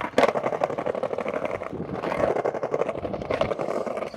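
Skateboard set down on brick pavers, then its wheels rolling across them: a steady rumble with rapid clacking over the joints between the bricks.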